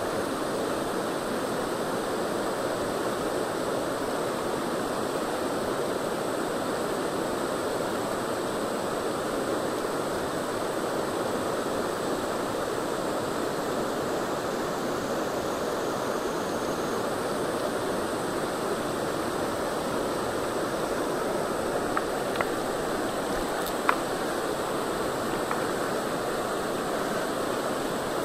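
Shallow rocky river flowing over stones in a riffle: a steady rush of water, with a few small ticks late on.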